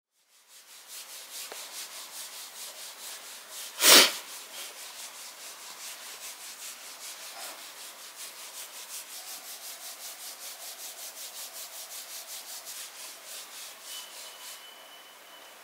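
Rhythmic rubbing, about four strokes a second, as a small dog lying on its back is rubbed against its fur. There is one sharp thump about four seconds in. Near the end a digital door lock's keypad beeps as the front-door code is entered.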